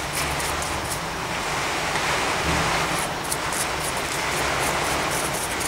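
Paintbrush scrubbing and dabbing a thin black acrylic wash onto rough plaster rock castings: a continuous scratchy rustle with small irregular strokes.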